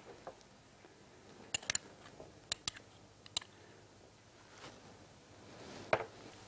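A handful of light, sharp clinks of a metal spoon and a small glass dish against a glass mixing bowl as honey is spooned onto berries, followed by a softer knock near the end.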